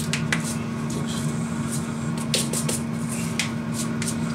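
A countertop air fryer running with a steady hum, while spice containers are handled and shaken over a bowl, giving about eight short, sharp rattles and clicks.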